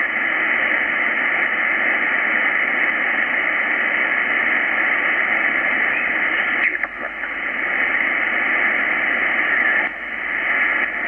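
Shortwave band noise hissing steadily from an Icom IC-R8600 communications receiver in upper-sideband mode as it is tuned up the 20-metre band. About two-thirds of the way through, a brief garbled chirp comes through as an off-tune sideband station is passed.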